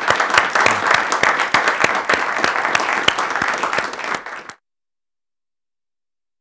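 Studio audience applauding, many hands clapping at once; the applause cuts off suddenly about four and a half seconds in.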